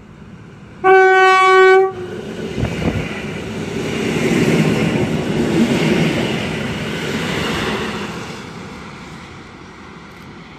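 Electric multiple unit sounds one horn blast, a single steady tone held for about a second. It then runs past at speed, its wheel-on-rail noise swelling as it goes by and fading away.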